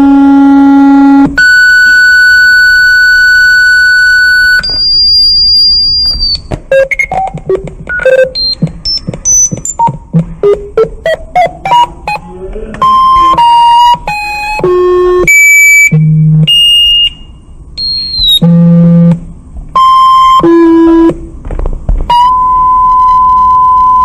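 Synthesized alarm tones of a made-up emergency alert. A buzzy low tone gives way to steady high tones and then a rapid run of short beeps climbing in pitch. After that come choppy tones jumping between pitches, and a steady mid-pitched tone near the end.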